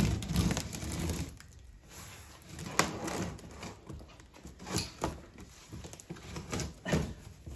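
Cardboard shipping box being opened: scissors cutting packing tape, then hands handling the cardboard, with a few scattered sharp taps and scrapes.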